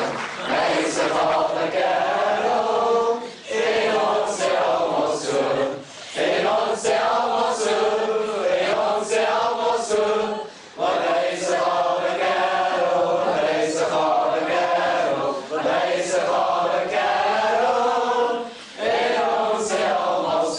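A choir singing a song together, in phrases of a few seconds with short breaths between them.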